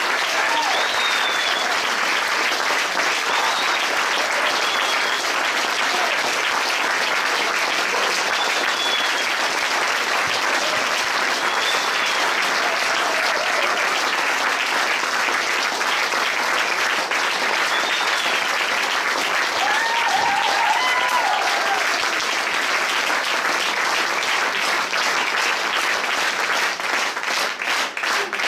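Audience applauding, with some cheers and calls from the crowd. Near the end the clapping falls into an even rhythm in unison.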